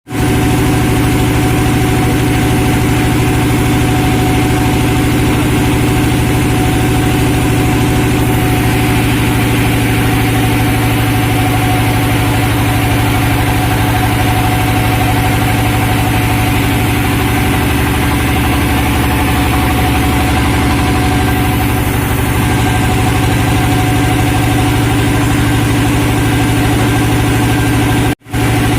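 Sawmill engine running steadily at a constant speed, with a brief sudden dropout near the end.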